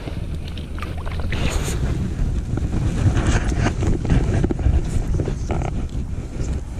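Wind buffeting the microphone as a strong, uneven low rumble, with scattered rustles and clicks of handling.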